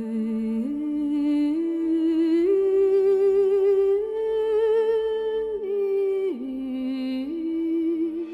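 Background music: a slow melody of long held notes with a slight vibrato, climbing step by step, dropping back about six seconds in, then rising again.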